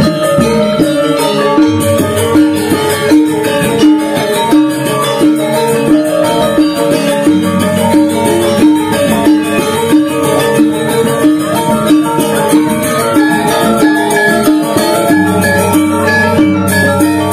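Balinese gong gede gamelan ensemble playing: bronze metallophones ringing a dense, fast melody over a steady beat of accented strikes, with deep low tones swelling in at times.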